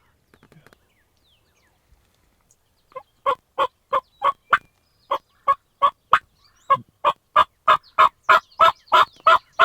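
Wild turkey yelping: a long, even series of short yelps, about three a second, starting about three seconds in and running on with a couple of brief pauses, a little louder toward the end.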